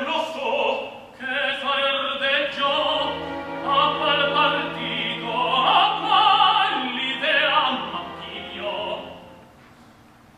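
Operatic singing with orchestral accompaniment: several classically trained voices with vibrato over a held low note, dying away near the end.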